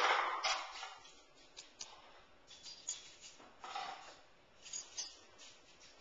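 Dishes and utensils clinking and clattering as a dishwasher is loaded, with a loud clatter that rings briefly at the start, another cluster about three and a half seconds in, and scattered sharp clicks between.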